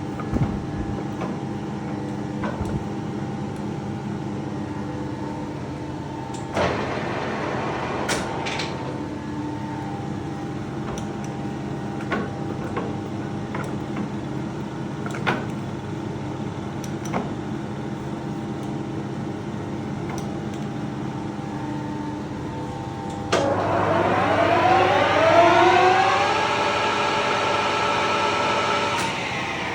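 Colchester Triumph 2000 lathe with its geared, oil-bath headstock running with a steady hum and gear whine, with a few sharp clicks. Late on it suddenly gets louder and a whine rises in pitch for a couple of seconds, then holds steady as the spindle comes up to a higher speed.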